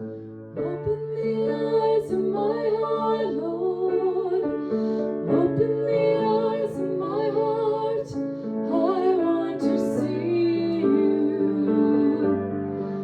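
A woman singing a worship song over keyboard accompaniment. Her voice comes in about half a second in over held chords.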